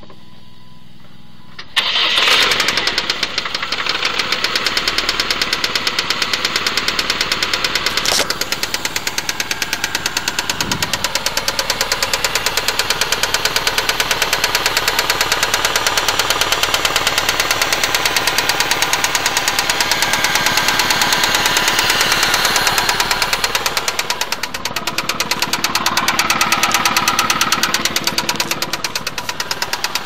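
Saturn SL2's 1.9-litre DOHC four-cylinder engine starting about two seconds in, then running with a steady, rapid knock.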